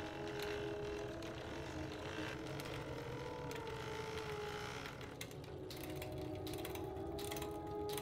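Road bike drivetrain turned by hand in a workstand to work in fresh chain lube: the chain runs over the cassette and derailleur pulleys while the freehub pawls ratchet. The clicking grows more distinct after about five seconds.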